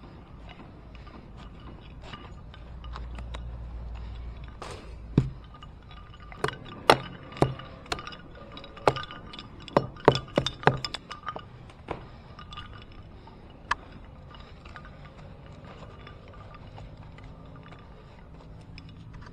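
Small hatchet chopping into a palm trunk: about a dozen sharp strikes, most in a quick irregular run in the middle, with one more a few seconds later.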